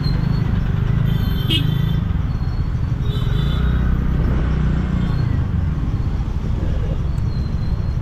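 Slow-moving dense road traffic heard from a scooter: a steady low rumble of engines and road noise, with engine pitch rising and falling in the middle. A short high beep sounds about a second and a half in.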